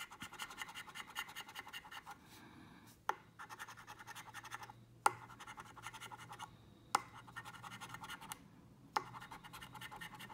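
A coin scraping the scratch-off coating from a paper lottery scratchcard in rapid back-and-forth strokes. The scratching comes in several runs with short pauses between them, and a few runs begin with a sharper click of the coin's edge.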